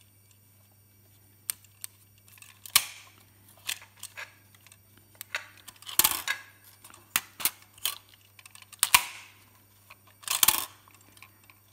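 Sharp clicks and snaps of a Kiev 6C camera's folding waist-level viewfinder hood as its panels are opened and folded shut, with light handling knocks on the camera body, at irregular intervals. The clicks come thickest about six seconds in and again near the end.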